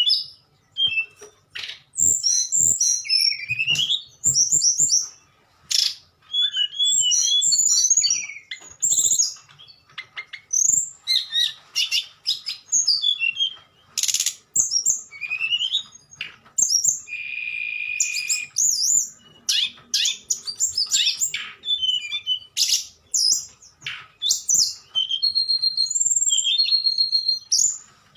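Tledekan songbird singing in flute-like whistles: a fast, varied run of high-pitched notes that slide up and down, in phrases split by short pauses. About two-thirds of the way through, one buzzy note is held steady for a little over a second.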